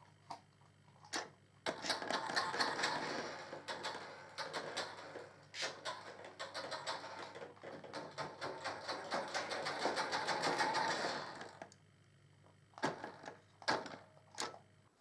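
Small electric drive motor and plastic gears of a 1:12 scale toy RC car whirring for about ten seconds, with a rattle of small clicks. There are a few sharp clicks before and after.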